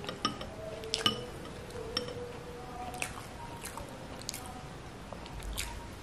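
Close-miked wet eating sounds: squishy chewing of soft, sambar-soaked idli, with sharp lip-smacks and clicks every second or so, the loudest about a second in.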